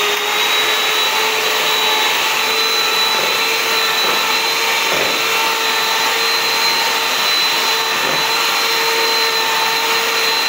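Electric hand mixer running steadily at one speed with a high motor whine, its beaters whisking raw eggs in a plastic bowl until whites and yolks are blended.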